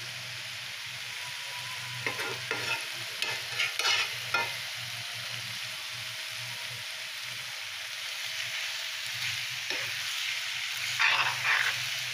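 Ash gourd and dried-fish bhaji sizzling steadily in a metal karahi. It is cooked down and nearly done, frying until the oil separates. A metal spoon scrapes and clatters against the pan in short bursts about two to four seconds in and again near the end.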